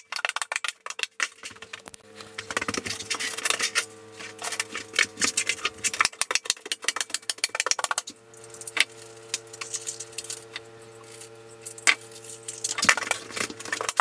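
A hand staple gun snapping repeatedly as it fastens wire lath to the plywood shower floor, with the metal lath rattling and clinking between shots: many sharp, irregular clicks.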